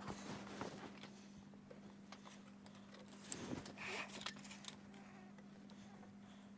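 Faint handling noises of timber and tools: scattered light clicks and rustling, a little busier around the middle, over a steady low hum.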